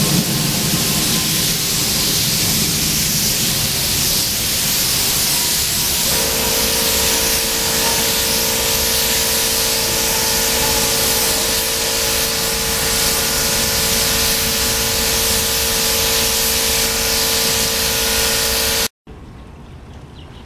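Iwata gravity-feed spray gun hissing steadily as compressed air atomises clear coat onto a masked motorcycle gas tank. A steady droning tone joins about six seconds in. The hiss cuts off abruptly near the end.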